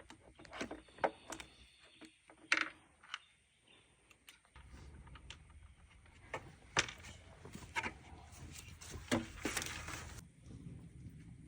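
Scattered light clicks, knocks and rattles of small hardware and tools being handled, with a few sharper knocks. A low steady rumble comes in about four and a half seconds in.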